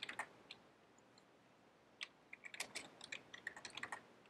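Computer keyboard typing, faint: a few key clicks at the start, then a quick run of keystrokes from about two seconds in.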